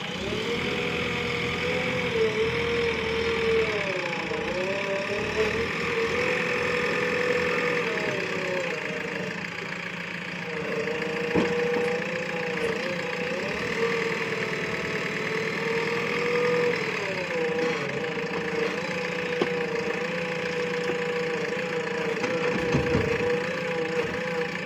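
Diesel engine running steadily, its pitch sagging briefly several times as it comes under load, as a working backhoe loader's engine does when the hydraulics pull it down.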